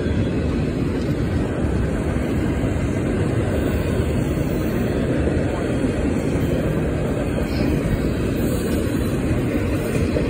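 Intermodal freight train's double-stack container well cars rolling past close by, a steady low rolling noise of steel wheels on the rails.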